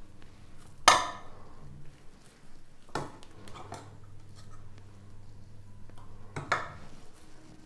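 A steel spoon clinks against the rim of a stainless steel mixing bowl three times as dough mixture is scooped out, each strike ringing briefly. The first clink, about a second in, is the loudest.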